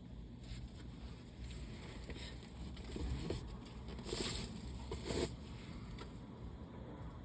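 A person with allergies sniffling: soft breathing, then two short, sharp sniffs about a second apart a little past the middle.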